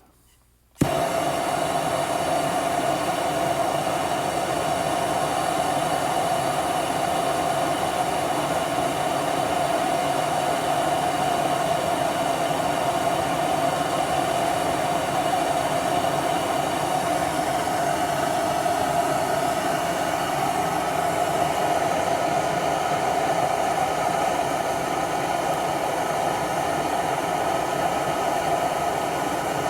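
MAP gas torch lighting with a brief pop about a second in, then burning with a steady hiss as it heats a seized mower-deck spindle.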